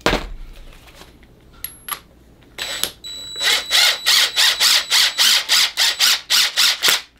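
Cordless impact driver driving a threaded fitting onto a braided rubber propane hose, running in quick, even pulses of about four a second from a little before halfway on. A sharp click at the very start.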